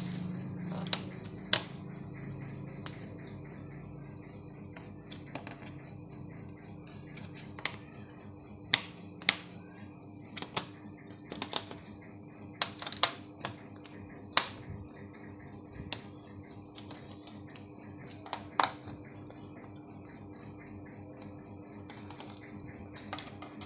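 Irregular sharp clicks and taps, about twenty spread unevenly, from a screwdriver and the plastic underside of a laptop as its back casing is taken apart, over a faint steady hum.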